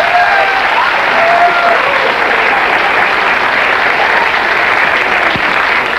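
Studio audience applauding steadily, with a few voices calling out in the first couple of seconds.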